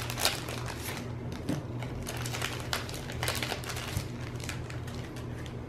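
Clear plastic bag crinkling and crackling in irregular small bursts as it is opened by hand and its contents pulled out.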